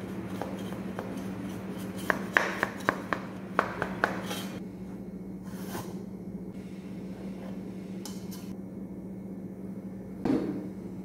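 Metal cake pan and plate clinking against each other as they are handled and flipped, a quick run of sharp clinks about two seconds in, then a duller knock near the end as the pan is lifted off. A steady low hum runs underneath.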